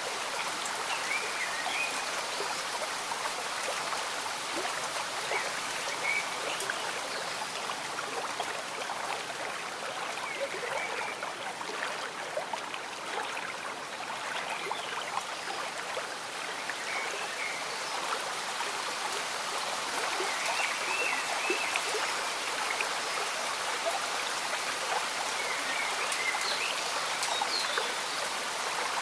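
Slow stream bubbling under gentle rain: a steady watery hiss dotted with many small drop ticks. Short chirping calls of small animals come every few seconds.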